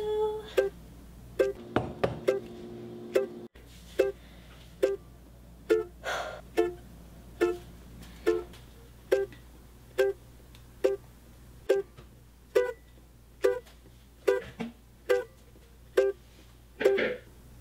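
Background instrumental music: a plucked string instrument playing evenly spaced notes, a little more than one a second.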